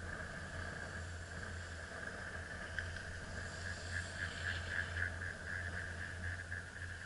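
Steady mechanical hum of a chairlift ride, a constant drone with a high whine above it, with a fast rhythmic pulsing joining in about three seconds in.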